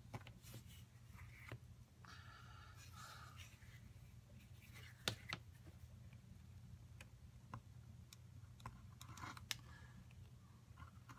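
Faint scratching of a knife blade cutting through leather on a cutting mat, with a few short sharp clicks scattered through it, over a low steady hum.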